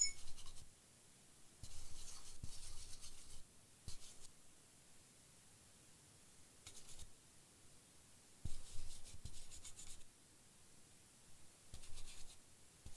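Toothbrush bristles scrubbing a laptop motherboard in short scratchy strokes, several bursts with pauses between them, cleaning off liquid-damage residue.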